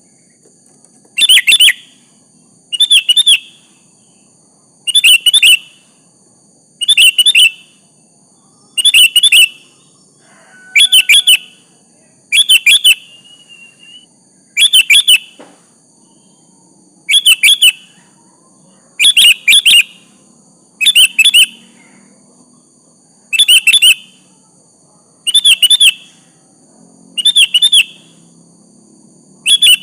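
Sooty-headed bulbul (kutilang) giving short, loud calls, each a quick burst of two or three notes, repeated about every two seconds.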